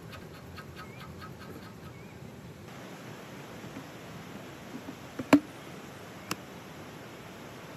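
Plastic oil pail's lid snapping loose as it is pried off: one sharp crack about five seconds in and a lighter click a second later. Faint rapid ticking, about five a second, runs through the first few seconds.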